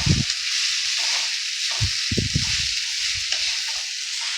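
Grated carrot, beetroot and peas sizzling in hot mustard oil as they are stirred in the pan, with a few low knocks of the spatula against the pan at the start and about two seconds in.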